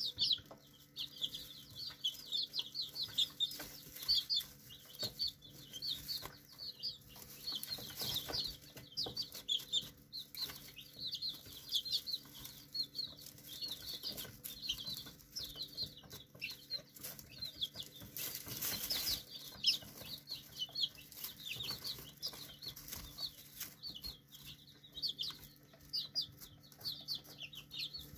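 A group of month-old chicks peeping without pause, many short high chirps a second, with the scratchy rustle of hay as they scratch and peck in it. About nineteen seconds in comes a short, louder burst of rustling.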